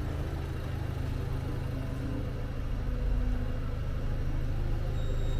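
Volvo S60 D2 diesel engine idling steadily, a low even hum.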